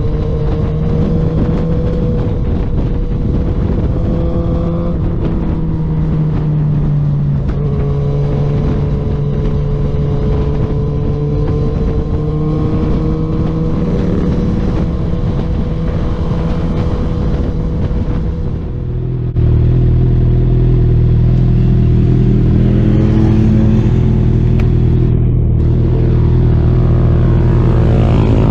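Suzuki GSX-R750 inline-four sport-bike engine running under way, its pitch gently rising and falling with road and wind noise. About two-thirds through, it cuts abruptly to a louder, steadier engine note.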